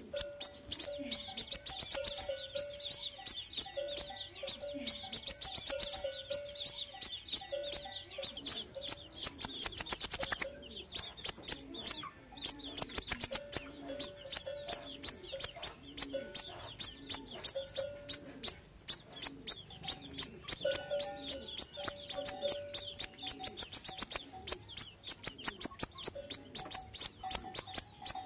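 Sunbird song (the Vietnamese 'hút mật ngực lửa') played back as a lure: long runs of very rapid, high-pitched ticking chips, repeated again and again with a short break about ten seconds in. Softer, lower whistled notes repeat underneath.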